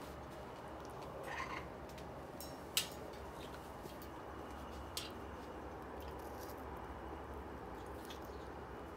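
Quiet room hum with a few faint clicks and light taps, the clearest about three seconds in and another about five seconds in, as a cockatoo moves about on top of its cage.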